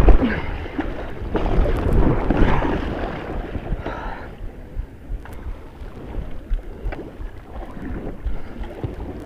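White-water river rushing and splashing around a kayak as it is paddled, with water and wind buffeting the camera's microphone. It is louder for the first three seconds or so, then calmer, with scattered knocks.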